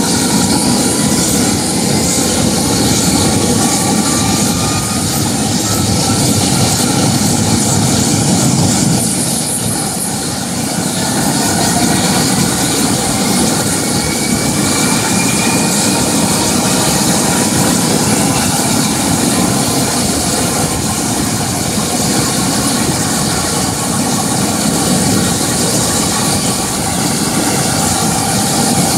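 Bell Boeing V-22 Osprey's twin turboshaft engines and proprotors running steadily on the ground during engine warm-up, a loud constant rush of turbine and rotor noise. A faint turbine whine rises slowly in pitch in the first few seconds and again around the middle.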